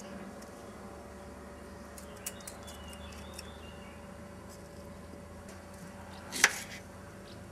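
Small clicks of a paring knife working tomato flesh by hand, with faint bird chirps, over a steady low hum. About six and a half seconds in, one loud sharp crunch as the knife cuts through a shallot on a wooden board.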